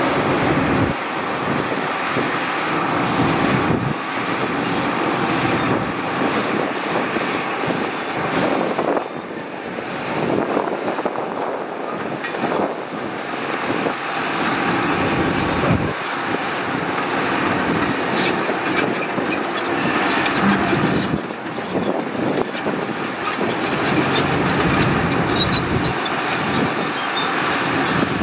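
Shantui SD16 crawler bulldozer working: its diesel engine runs steadily under load while the steel tracks clatter and the blade shoves broken rock and soil, with scattered knocks of stone.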